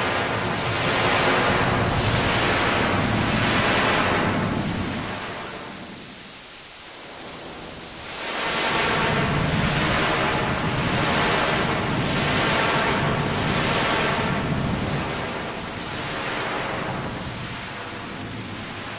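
A singing voice processed in Audacity until it is mostly harsh hiss and static, with rhythmic swells a little over a second apart. It dips quieter about a third of the way through, comes back, and fades near the end.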